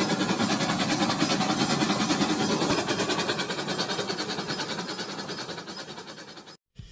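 Rhythmic clickety-clack of a running train, about five beats a second, fading away over the last few seconds and cutting off just before the end.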